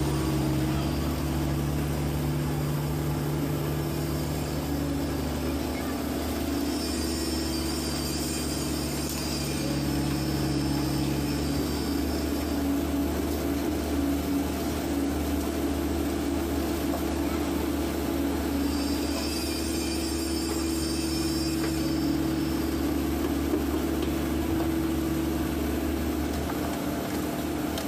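PC120 hydraulic excavator's diesel engine running steadily, heard from inside the cab. A higher whine comes in twice as the boom swings the loaded concrete bucket.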